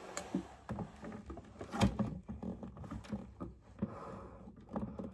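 Picture frames being hung and straightened on a wall: irregular knocks, taps and clicks of frame against wall and hook, the loudest knock a little under two seconds in.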